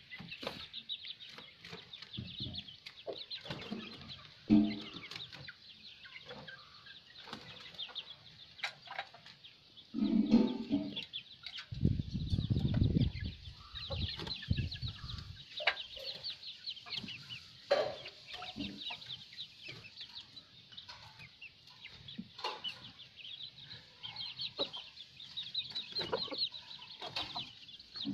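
Chicks peeping in many quick high chirps, with adult hens clucking now and then. A low rumble is heard for a few seconds partway through.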